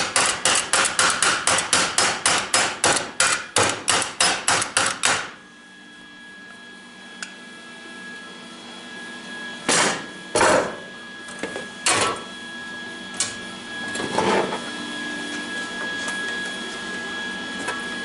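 Hammer striking metal in a fast, even run of blows, about four or five a second, that stops about five seconds in; a few separate knocks follow later.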